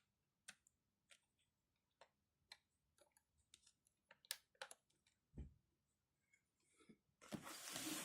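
Faint scattered clicks and light knocks of handling, with a low thump about halfway through and a short burst of rustling near the end.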